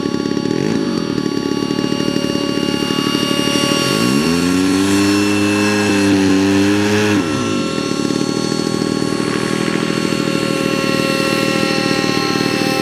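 Aeroworks Extra 260 model aircraft's engine running on the ground. About four seconds in it is throttled up, the pitch rising and holding for roughly three seconds before dropping back to idle.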